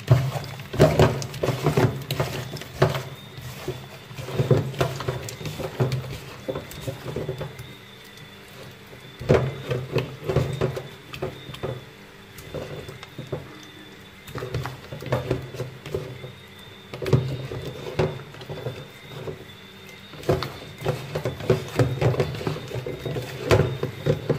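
Irregular taps, knocks and patter of food and utensils being handled in the kitchen, over a steady low hum.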